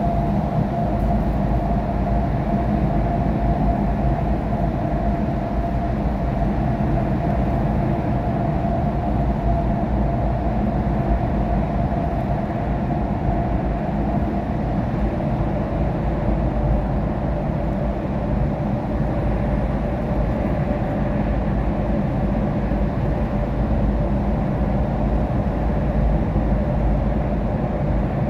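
Steady road and tyre noise of a car driving on a wet expressway, heard from inside the cabin, with a low engine hum and a faint steady whine.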